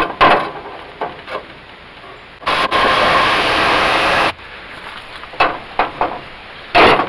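Cordless reciprocating saw cutting through the rusty sheet-metal heat-riser snorkel of a car air cleaner, running for about two seconds with a brief break just after it starts. Handling knocks come before it, and a short burst of noise comes near the end.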